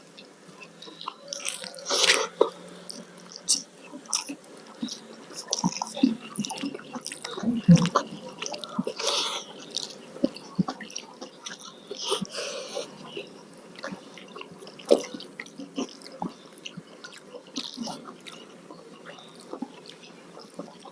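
Close-miked eating sounds: wet chewing, biting and mouth smacks in irregular clicks and short bursts, the loudest about two seconds in and again near eight seconds.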